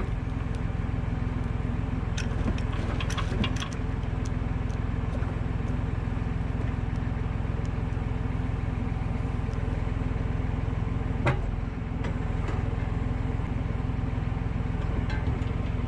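Valtra A93 tractor's four-cylinder diesel engine running at a steady pitch, with a few sharp knocks and clicks, the loudest about eleven seconds in.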